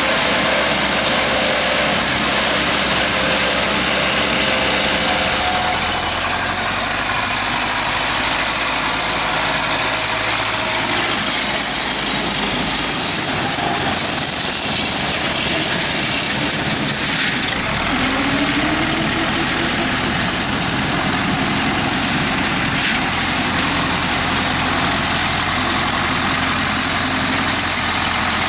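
Zetor tractor diesel engine running steadily under load while pulling a rear-mounted rotary mower through grass. The engine note rises briefly about two-thirds of the way through.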